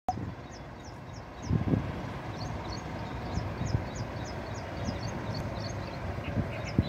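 Outdoor traffic ambience: a steady distant rumble of road vehicles, broken by a few low thumps. Over it a short, high chirp repeats about three times a second.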